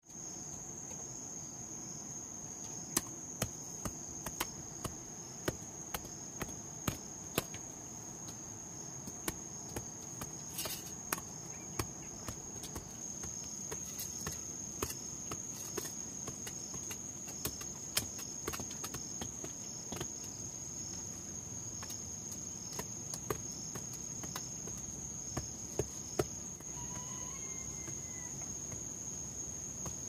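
Insects keep up a continuous high-pitched drone. Over it come sharp irregular strikes of steel hoes biting into clumpy soil, roughly one every half second to second.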